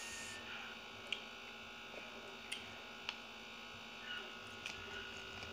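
Close-up eating sounds of someone chewing grilled fish, with a handful of small, sharp mouth clicks and smacks over a steady electrical hum.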